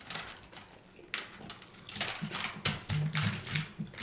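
Crispy fried chicken wings crackling and clicking as fingers sort through the pile on a tray, in several short spells. A low hummed voice comes in near the end.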